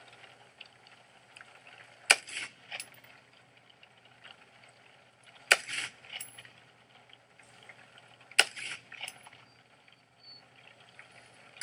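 Three single shots from a 10.5-inch AR-15 pistol firing 5.56 brass ammunition, about three seconds apart, each followed by a brief echo.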